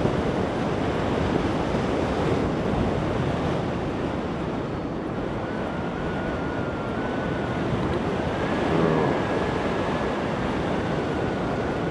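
Wind from a hang glider's flight rushing over the microphone: a steady, even noise of moving air, with a faint thin whistle from about halfway.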